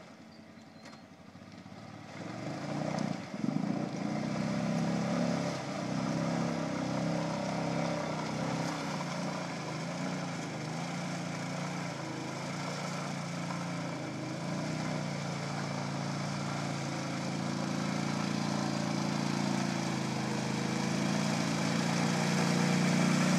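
Honda Rincon ATV's single-cylinder engine running steadily as the quad is ridden slowly through mud and water. It starts faint, picks up about two seconds in, and grows louder as the quad comes closer.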